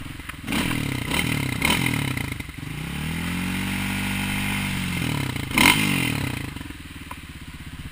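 Dirt bike engine revving in blips, then rising, holding high for a couple of seconds and falling back. A sharp clatter comes near the end before the engine settles to a low idle.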